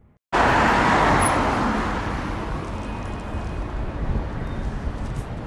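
Boeing 747-400 on final approach: a steady rushing jet-engine noise with a low rumble underneath. It comes in abruptly just after the start, loudest at first, and eases somewhat over the next couple of seconds.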